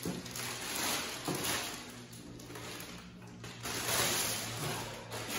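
Clear plastic bag rustling and crinkling as it is pulled off a boxed battery pack, in a few uneven swells.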